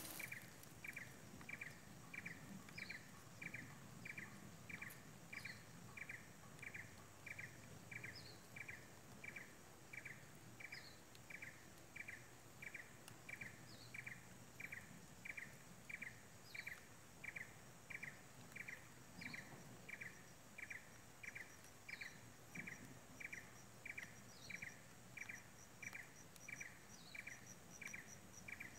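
Faint animal calls: a short call repeated evenly, about three times every two seconds, with a thinner, higher chirp about every three seconds and a fast high ticking in the last few seconds.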